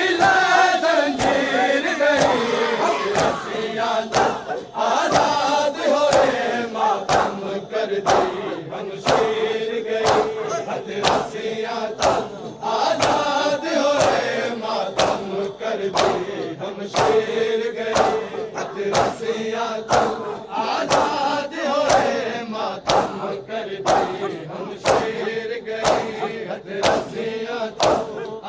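A crowd of men chanting a noha in unison, led by a reciter, with sharp chest-beating slaps (matam) keeping time about once a second.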